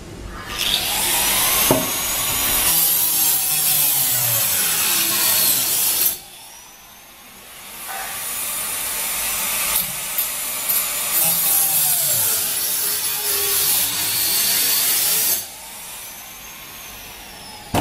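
A saw cutting through an EPS foam sandwich wall panel. There are two long runs of cutting, the first from about half a second in to about six seconds, the second from about eight seconds to about fifteen seconds.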